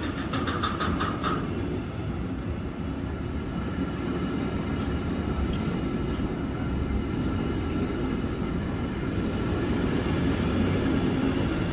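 Container wagons of a freight train rolling past close by: a steady rumble of wheels on rails, with a quick run of sharp clicks, about six a second, in the first second.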